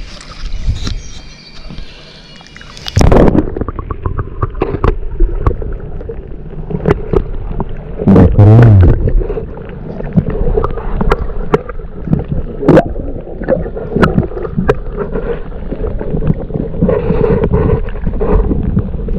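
A camera going underwater about three seconds in, after which everything sounds muffled: scattered knocks and clicks, with a loud burst of gurgling bubbles around eight seconds in.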